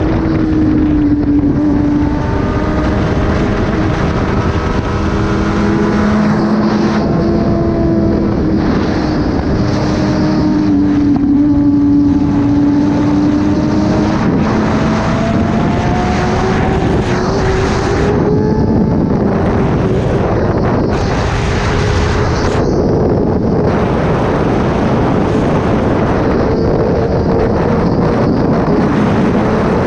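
Kawasaki ZX-10R inline-four engine running through an SC-Project aftermarket exhaust while riding at a cruise, its revs easing down and building up again slowly several times, with wind noise on the microphone.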